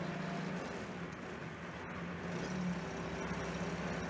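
Car engine running steadily with road noise, heard from inside the cabin.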